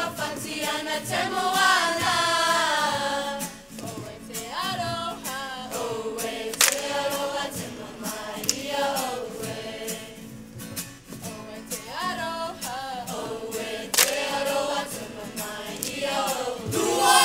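A children's kapa haka group singing together, a held, wavering group melody, with a few sharp hits standing out about seven and fourteen seconds in.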